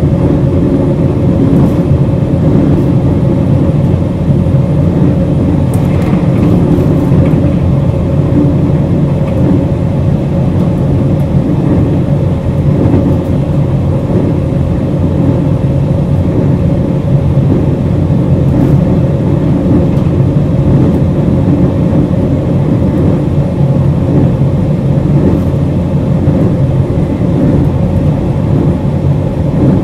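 Cabin running sound of a JR Hokkaido 721 series 0-subseries electric multiple unit, the type with thyristor phase-control traction, running steadily along the line. It is a loud, even low rumble with a steady hum.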